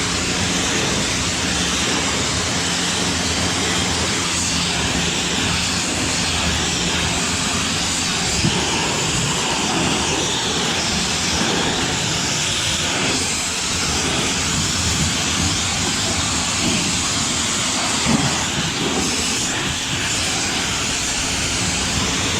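Water spraying onto a John Deere 675B skid steer loader to wash it: a steady hiss with a steady engine hum running underneath.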